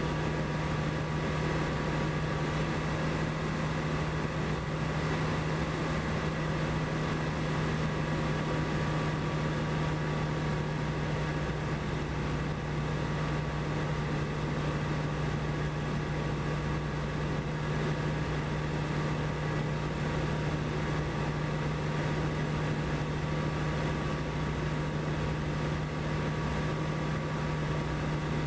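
Single-engine light aircraft's engine and propeller droning steadily in flight, a constant low hum over an even rush of noise.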